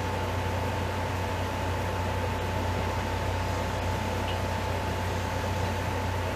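Steady hum and hiss of a running fan, with a thin constant whine above it.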